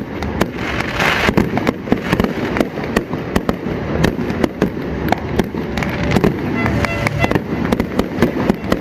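Fireworks display going off: a dense, irregular stream of bangs and crackles with no pause, with voices mixed in underneath.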